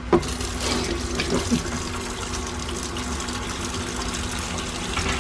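Water running steadily from a tap into a basin, filling it.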